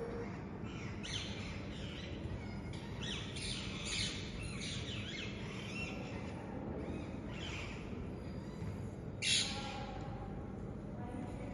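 Parrots squawking: a string of harsh, high calls, the loudest about nine seconds in, over steady low background noise.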